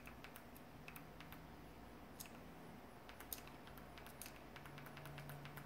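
Faint, irregular clicks from a TV remote's buttons as it steps through an on-screen keyboard, over a faint low hum.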